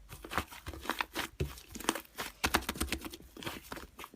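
Slime being squeezed and stretched by hand, giving off irregular crackling and popping clicks.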